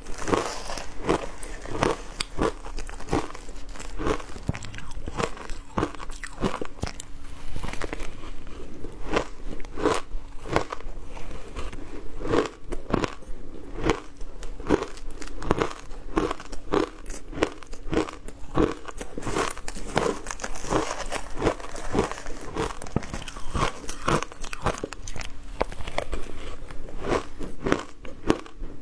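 Matcha-dusted shaved ice being chewed: a steady run of crisp crunches, about two a second.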